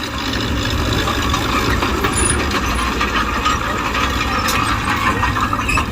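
Mitsubishi BD2G bulldozer's diesel engine running steadily, with irregular metallic clanking and rattling over it.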